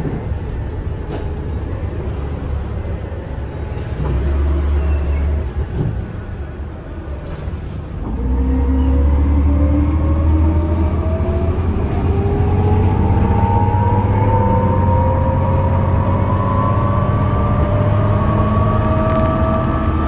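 Ride inside a 2006 NABI 40-LFW bus with a Cummins Westport C Gas Plus CNG engine and Allison B400R transmission: a low engine rumble, and from about eight seconds in the bus gets under way with a drivetrain whine rising steadily in pitch as it gathers speed.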